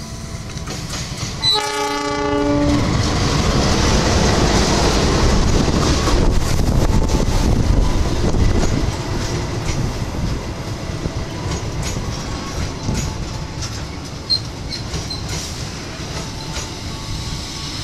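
Diesel locomotive of an express passenger train gives one horn blast of about a second, then the train runs through the station without stopping: a loud rumble with rapid wheel clicks over the rail joints, easing off somewhat as the coaches pass.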